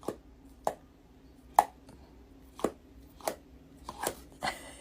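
A series of sharp knocks, about seven, irregularly spaced over a few seconds.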